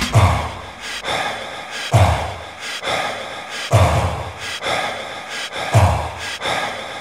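Background music in a sparse break: a deep thump about every two seconds, each followed by a breathy swish, with no melody.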